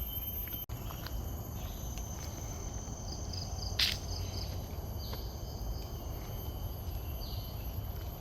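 Forest insects droning in several steady high-pitched tones, with short repeated chirps above them, over a constant low rumble. A brief sharp noise comes about four seconds in, and the sound cuts out for an instant just under a second in.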